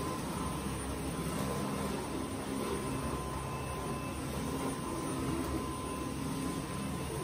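Dyson cordless stick vacuum running steadily: a constant rush of air with a thin steady whine.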